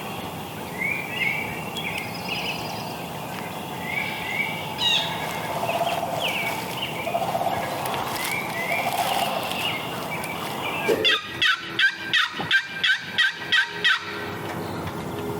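Wild turkeys calling, with small birds chirping. About eleven seconds in, a close turkey gives a fast run of about ten loud calls that lasts about three seconds.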